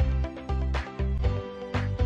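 Background music with a steady beat: a low bass note about every half second and a sharp hit about once a second.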